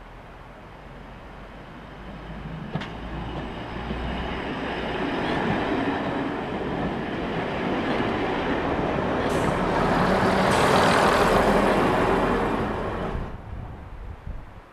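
Heritage first-generation diesel multiple unit running past at close range alongside a station platform: diesel engine note and wheels on the rails, growing louder over several seconds, with a sharp click about three seconds in. The sound cuts off abruptly near the end.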